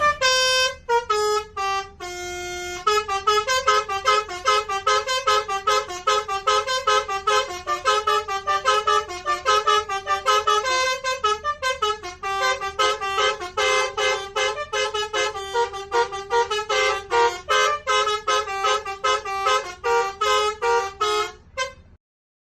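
Basuri telolet multi-tone bus horn playing a fast tune of short beeping notes, several a second, with one longer held note near the start; it cuts off suddenly near the end.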